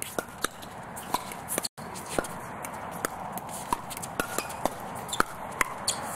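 Pickleball rally: many sharp pops of paddles hitting a hollow plastic ball, coming at an uneven pace. The sound drops out for an instant a little under two seconds in.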